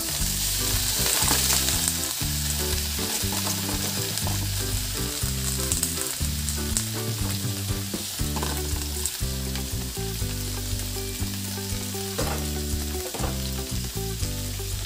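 Chopped cabbage dropped into a hot wok of frying vegetables: the oil sizzles loudest in the first couple of seconds, then goes on frying steadily. Low background music plays underneath.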